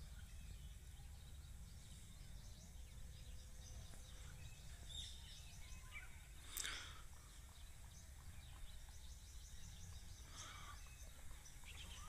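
Near silence: faint room tone with a steady low hum and a few soft ticks, and one brief louder noise about six and a half seconds in.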